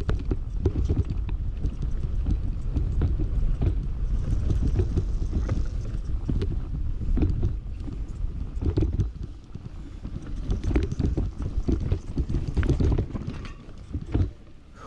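Full-suspension electric mountain bike descending a rough dirt trail: tyres rumbling over the ground, with a constant clatter of sharp knocks and rattles from the bike over bumps. Wind buffets the camera microphone.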